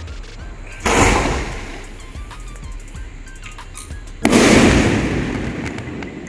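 Aerial firework shell: a sharp bang about a second in as it launches from its tube. About three seconds later comes a louder bang as it bursts overhead, with a rumbling echo that dies away over the next two seconds.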